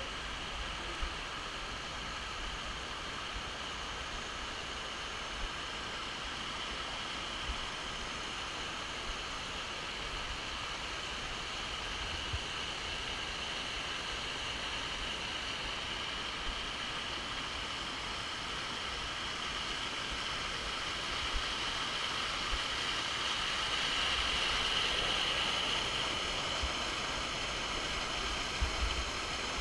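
Steady rushing of the Banfora waterfalls, growing a little louder about three-quarters of the way through, with a few brief low knocks now and then.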